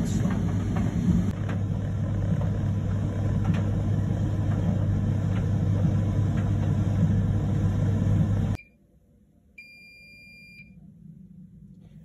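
Bosch heat pump dryer running mid-cycle, a steady hum with a strong low drone, drawing about 510 watts. It cuts off abruptly about two-thirds through, and a single high electronic beep lasting about a second follows, the dryer signalling that its program has ended.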